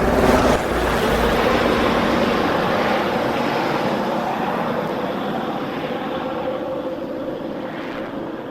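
Enstrom 480B turbine helicopter passing overhead: loudest about half a second in, then a steady rotor and engine noise that slowly fades as it flies away.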